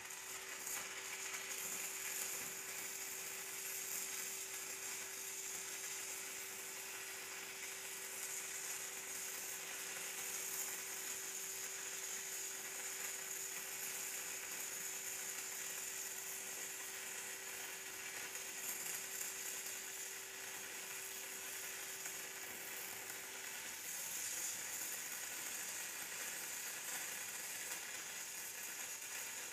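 Shielded metal arc (stick) welding arc of a 3/32-inch E6010 electrode on mild steel plate, run DCEP at about 70 amps from a Miller Dynasty: a steady crackling sizzle as a bead is laid, without a break. A faint steady hum underneath stops near the end.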